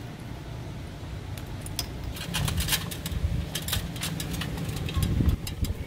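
Handling noise of an antenna cable and rubber grommet being worked into a hole in the side wall of an RV: irregular small clicks and rustles over a low steady rumble.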